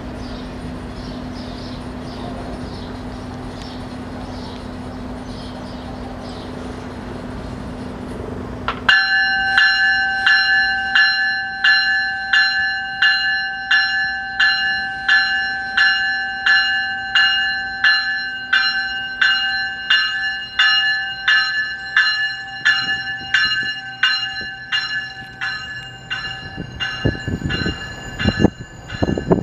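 Steady hum of a GO Transit push-pull train standing at the platform. About nine seconds in, the cab car's warning bell starts ringing about once a second as the train departs. Near the end the train begins to roll, adding a rumble of wheels on the rails.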